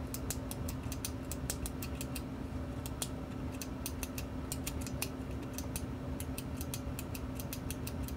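Front-panel switches on a Texas Star DX500 CB amplifier being clicked over and over, several sharp, uneven clicks a second, over a steady low hum.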